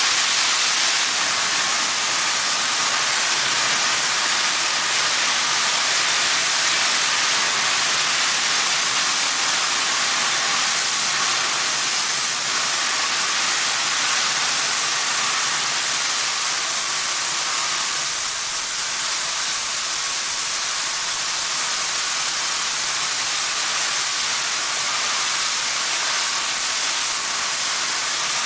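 Loud, steady hiss in a copper smelter's furnace area, where molten copper glows and spills at the furnace mouth.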